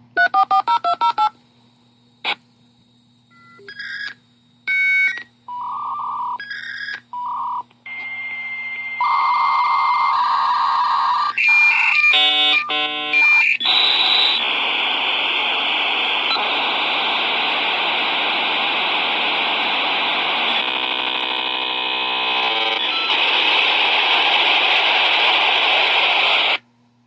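A dial-up modem connecting. It opens with a quick run of touch-tone dialing, then a string of beeps and steady tones from the handshake. From about halfway a loud, steady hissing screech runs on until it cuts off suddenly near the end.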